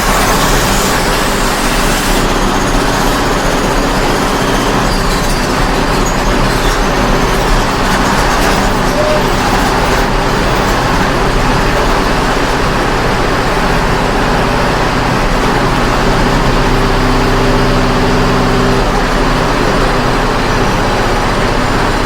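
Construction site din: heavy machinery engines running steadily under a dense, unbroken wash of mechanical noise.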